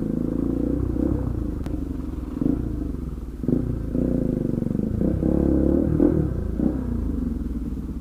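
Bajaj Pulsar NS200's single-cylinder engine running under way with the dB killer pulled from its exhaust, the note swelling and rising with the throttle several times.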